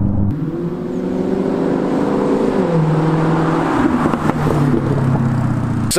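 Jaguar F-Type sports car's engine as the car drives by, its note steady at first, then dropping in pitch about halfway through and holding lower.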